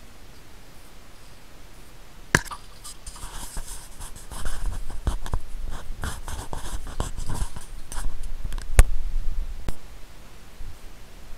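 Handling noise on the camera: close rubbing and scratching with scattered clicks, and sharp knocks about two and a half seconds in and again near nine seconds, the second the loudest.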